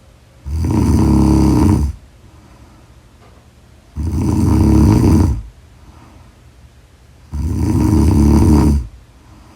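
A woman snoring loudly: three long snores about three and a half seconds apart, each lasting about a second and a half.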